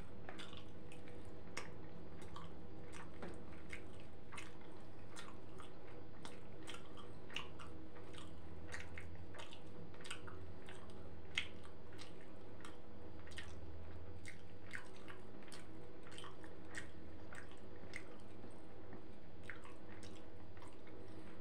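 Close-up wet chewing of a shawarma, with irregular smacking clicks of the lips and tongue several times a second over a steady hum.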